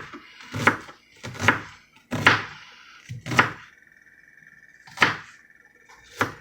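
Kitchen knife chopping onion on a cutting board: about seven separate knocks at uneven intervals.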